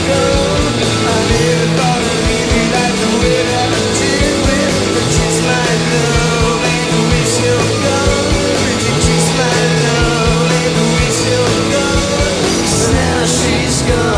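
Rock band playing live: distorted guitars and a bass line stepping between two low notes over and over, with drums and cymbal crashes near the end.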